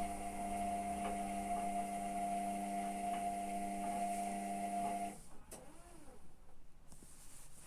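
Hotpoint Ariston ARSL100 washing machine giving off a steady electric hum, a buzz made of several evenly spaced tones, which cuts off about five seconds in.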